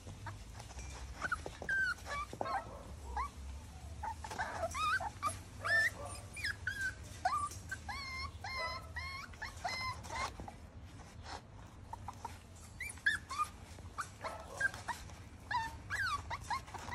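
Puppies whimpering and whining in many short, high-pitched cries, one after another, with a lull of a few seconds past the middle.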